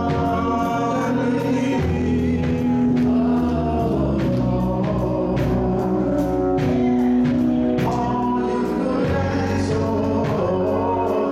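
Gospel choir singing with instrumental accompaniment: long held chords changing every second or so over a steady beat.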